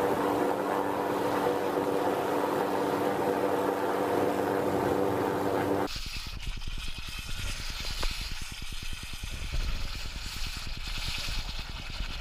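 A steady motor-like drone with several held tones cuts off suddenly about six seconds in. It gives way to wind rumbling on the microphone and a brief hiss near the end as molten lava steams in a bucket of water.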